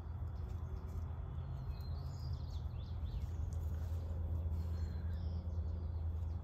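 Outdoor ambience: a steady low rumble with a few faint, high bird chirps about two to three seconds in and again near five seconds.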